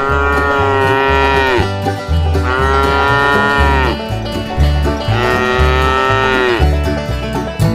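A cow mooing three times, each moo long and dropping in pitch at its end. Banjo-led bluegrass music with a steady beat plays under it.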